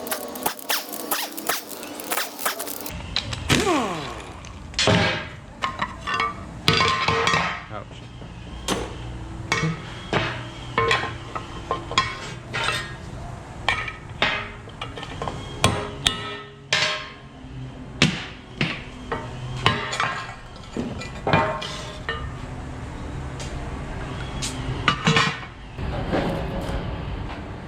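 Hand tools clanking and tapping on the parts of an LS1 engine being taken apart: many separate metal knocks and hammer taps, some ringing briefly. Music plays underneath.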